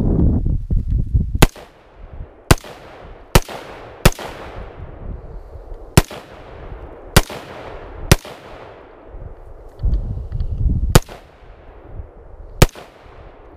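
Smith & Wesson M&P15 Sport II, a semi-automatic 5.56 mm AR-15 rifle, firing about nine single shots at uneven gaps of one to two seconds, each crack trailing off in echo. A low rumble comes under the first second and again about ten seconds in.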